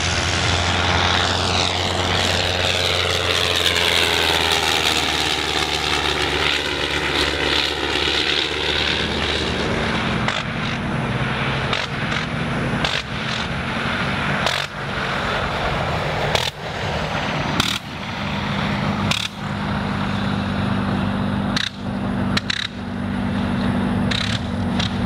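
Sopwith Snipe biplane's rotary engine and propeller passing low overhead, the engine note falling in pitch as it goes by. In the second half the engine cuts out for moments several times, as a rotary is blipped on and off for landing, then runs on steadily as the plane rolls on the grass.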